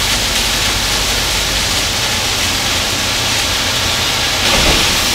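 Gravel pouring and sliding out of a raised dump truck bed onto a pile, a steady rushing hiss over the truck's engine running, swelling briefly near the end.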